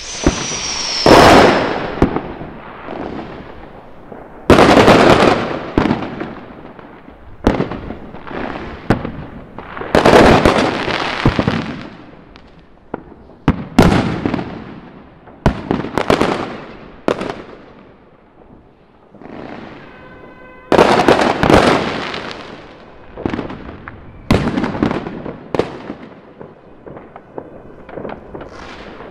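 Fireworks going off: a string of loud bangs a second or two apart, each trailing off in a rumble and crackle, with a short falling whistle at the start and a quieter lull about two-thirds of the way through.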